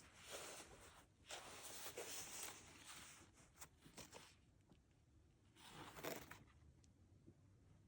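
Soft rustling as a handbag and its wrapping are handled, in three short spells: a brief one, a longer one of about three seconds, and a last short one, then it goes still.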